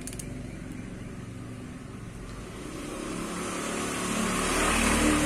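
A motor vehicle's engine passing by, growing louder to a peak near the end, over a low steady hum, with a couple of faint clicks at the start.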